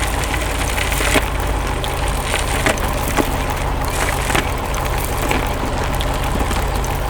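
Excavator engine running steadily under a stream of sharp wood cracks and splintering, as fallen tree trunks are broken.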